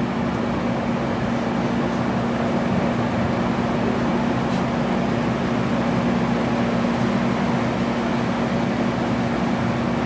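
Microwave oven running: a steady electrical hum over the even whir of its fan.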